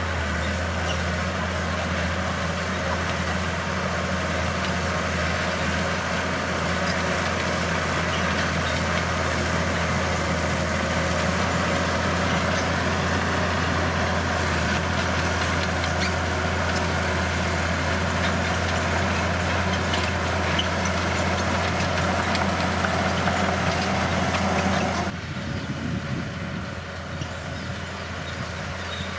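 Bulldozer's diesel engine running steadily with a deep, even hum. It drops suddenly to a quieter, duller level near the end.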